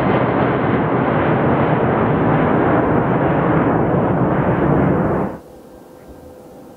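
Boeing 777-200ER's twin jet engines at takeoff thrust as it climbs away, a loud steady roar whose high end slowly fades. About five seconds in it cuts off suddenly to a much quieter, steady distant jet hum with a faint whine from an airliner on the runway.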